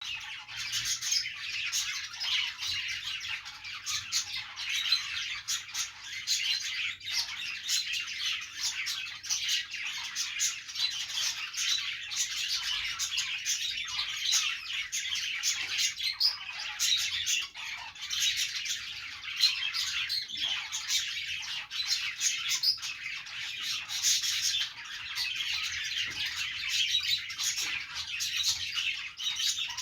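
Several pet budgerigars chattering without pause: a dense, overlapping stream of high chirps, warbles and short squawks.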